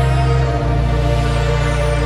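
Background music: slow, held bass notes and sustained tones, shifting to new notes about half a second in.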